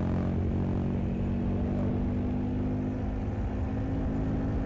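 Motor vehicle engine running steadily at an even pitch.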